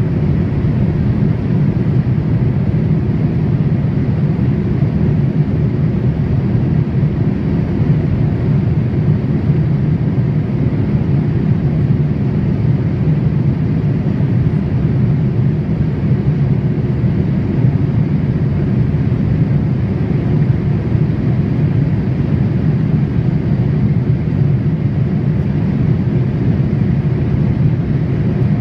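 Steady cabin noise of a Boeing 787 airliner in flight: an even, low rushing drone of engines and airflow heard inside the cabin.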